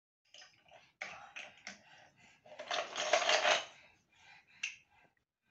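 Plastic Duplo blocks clattering and clicking against each other as a small child rummages through a plastic bucket of them, in short bursts with the densest clatter a little past halfway.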